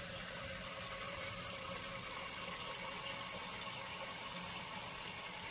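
Tap water running steadily into a stainless steel kitchen sink.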